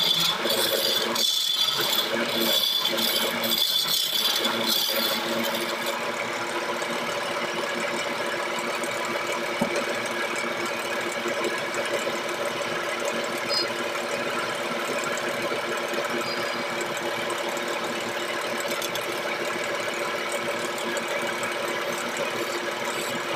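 Wood lathe spinning a gamari-wood blank, with a hand-held turning tool scraping shavings off it for about the first five seconds. The cutting then stops, and the lathe's motor runs on with a steady hum.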